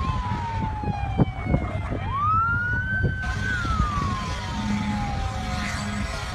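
Emergency-vehicle siren wailing: each cycle rises quickly, holds, then falls slowly over about three seconds, starting again about two seconds in and once more near the end. Underneath runs a steady low rumble, with a couple of short thumps about a second in.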